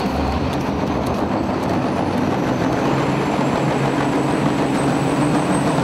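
Diesel engines of two big-rig semi-truck tractors running loudly at a drag-race start line, a steady rumble that builds slightly in level, with a faint high whine holding over it in the second half.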